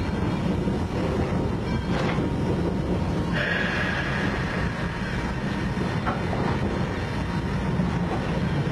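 Knox & Kane steam locomotive #58 running, heard from inside its cab as a steady heavy rumble and rattle. A knock comes about two seconds in, and a high steady tone comes in a little past the middle and fades away.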